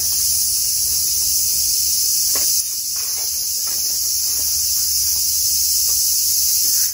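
Loud, steady, shrill chorus of cicadas in the summer trees. A few faint clicks sound in the middle.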